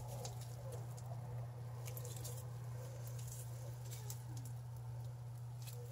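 Faint soft squishing and small crackles of plastic-gloved hands kneading and pulling stiff, taffy-like cream soap paste in a bowl, over a steady low hum.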